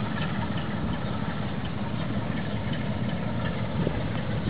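Sulzer diesel engine of a class 62 diesel-electric locomotive running with a steady low rumble as the locomotive approaches, with a few faint knocks near the end.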